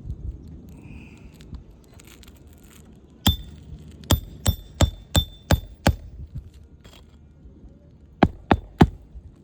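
Hammer blows driving roofing nails into asphalt shingles, each strike with a short metallic ring. There is one blow about three seconds in, then six in quick succession at about three a second, then three more near the end.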